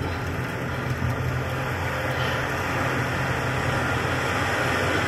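A steady low rumbling drone with a hiss over it, engine-like in character.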